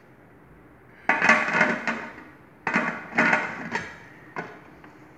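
Aluminium lid of a Presto pressure canner set onto the pot and twisted to lock it down: two bouts of metal scraping and clanking with a ringing tone, then one short knock near the end.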